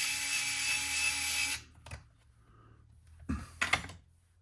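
Small cordless electric screwdriver running steadily with a faint whine as it drives a screw into the plastic chassis of a radio-controlled car kit, stopping about a second and a half in. A few light clicks of parts being handled follow near the end.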